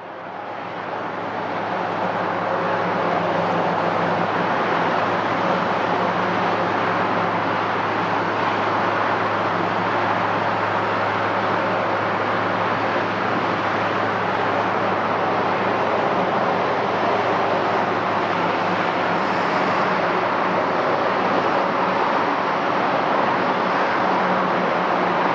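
Steady jet engine noise from a Boeing 787-9 airliner, an even rush with a low hum under it, fading in over the first two seconds.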